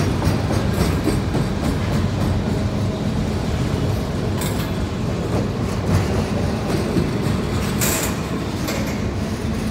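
CSX autorack freight train's cars rolling past, a steady rumble of steel wheels on the rails with occasional sharp clacks, the clearest about halfway through and again near the end.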